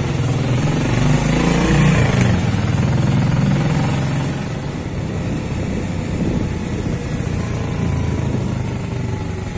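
Motorcycle engine running steadily while riding along a road.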